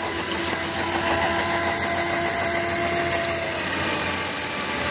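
Small battery-powered BO gear motor of a cardboard toy truck running with a thin steady whine over a steady hiss.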